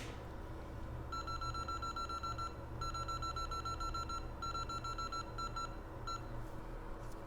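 Rapid electronic beeping at one high pitch, about seven beeps a second, in three runs of about a second and a half each and a brief fourth. A steady low hum from the electronics workbench runs underneath.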